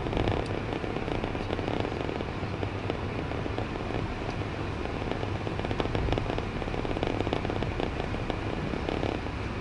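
Passenger train running on the rails: a steady low rumble with a dense, crackling rattle of clicks throughout.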